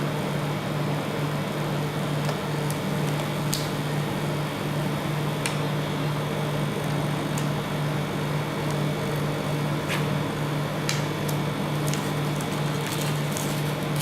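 Steady low hum of a rolled-ice-cream cold-plate machine's refrigeration unit, with scattered sharp taps and scrapes of a metal spatula on the frozen pan, coming more often near the end.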